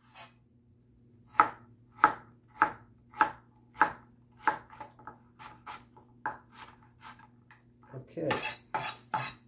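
Chef's knife chopping onion on a plastic cutting board: sharp strikes a little under two a second, then quicker, lighter strokes, with a louder scraping sound near the end.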